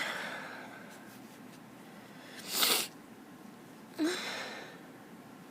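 A woman sneezing in an allergy fit: three short, sudden sneezes a second or two apart. The last has a brief voiced note and trails off.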